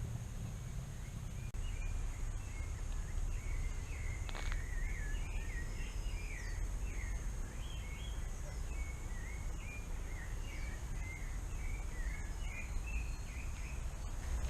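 Rainforest ambience: a bird singing a long run of quick, warbled chirping notes over a steady high-pitched insect drone and a low rumble.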